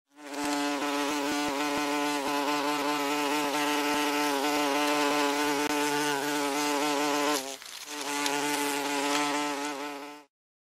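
Wasps buzzing with a steady, pitched wing hum. It drops out briefly about seven and a half seconds in, resumes, and cuts off abruptly near the end.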